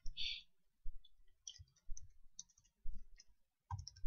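Typing on a computer keyboard: separate key clicks at an uneven pace, about two or three a second, each a soft thud with a light tick.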